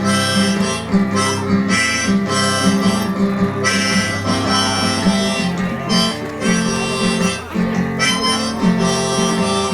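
Harmonica playing sustained, phrased notes over acoustic guitar accompaniment, in an instrumental passage of a blues/country song.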